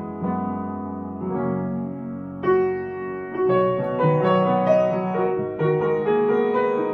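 Piano music, with chords and melody notes struck and held, changing every second or so.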